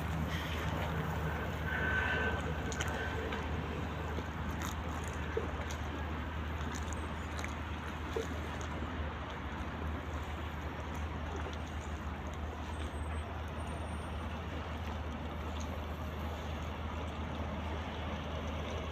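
Steady seafront harbour ambience: a continuous low rumble of road traffic along the promenade, with a short high tone about two seconds in.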